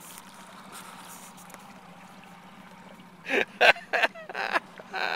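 Small Tohatsu outboard motor idling as a faint steady hum under water hiss. About three seconds in comes a quick run of loud knocks and bumps.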